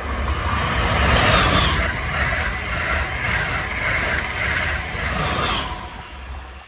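An Amtrak passenger train passing at speed: the rush and rumble of its coaches' wheels on the rails builds quickly, holds loud for several seconds, then falls away near the end.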